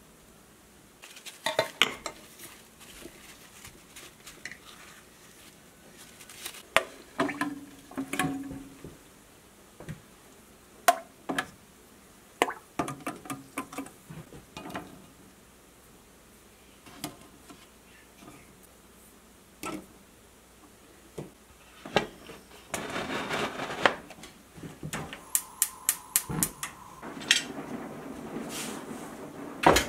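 Glass canning jars, metal lids and an aluminium pressure canner clinking and knocking, many separate sharp clicks as jars are filled, lidded and set into the canner. There is a short rush of noise in the second half, a quick run of clicks, and a steadier rushing noise near the end.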